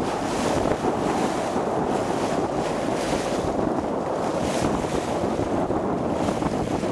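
Steady wind noise buffeting the microphone over the wash of sea water around a boat.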